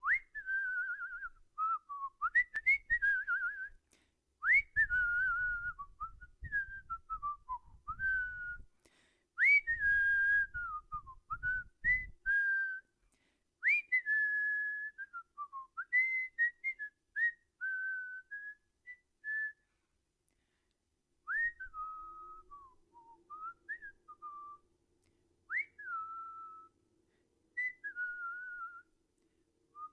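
A person whistling a wandering melody in short phrases with pauses, many notes swooping up sharply and then sliding down. Low rumbling noise on the microphone comes and goes during roughly the first twelve seconds.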